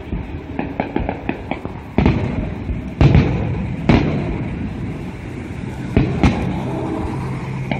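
Fireworks display: aerial shells bursting overhead in a series of sharp booms about a second or two apart, the loudest two near the middle, with fainter crackling and pops between them.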